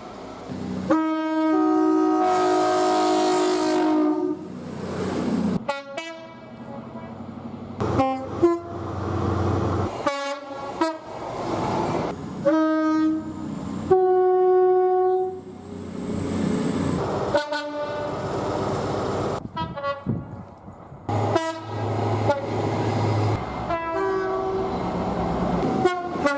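British trains sounding two-tone horns, one short clip after another with abrupt cuts every few seconds. Each horn blast is a few steady notes held for a second or two, over the rumble and rail noise of the passing trains.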